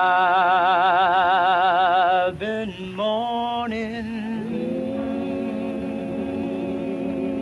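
Male gospel vocal group singing a slow, drawn-out a cappella line. A high lead voice holds a long note with wide vibrato over sustained lower voices, breaks off a little after two seconds, and the lower voices carry on holding their notes.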